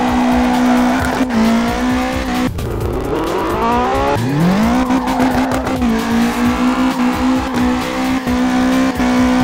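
Remote-control 1/14-scale Bugatti Chiron toy car's electric motor and gears whining as it drives. The whine holds a steady pitch, drops out about two and a half seconds in, rises, then starts low again and climbs back to the same steady pitch about five seconds in.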